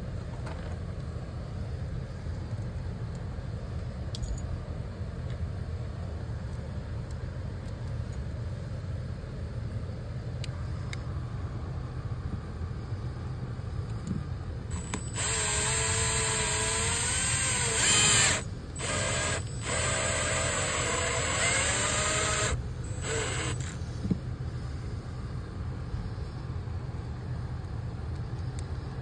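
Power drill driving mounting screws through a hose bib's flange into the wood behind the siding: a motor whine starting about halfway through, rising and falling in pitch as the screw goes in, running about seven seconds with two short stops. A steady low hum sits underneath throughout.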